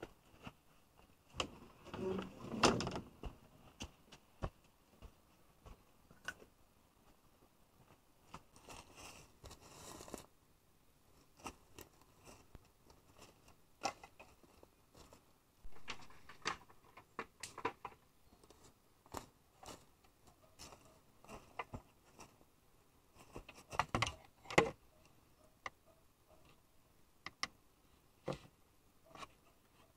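Sparse light knocks, clicks and rustles of things being handled by hand, with louder clusters of knocks about two seconds in and again near twenty-four seconds, and a longer rustle around nine seconds.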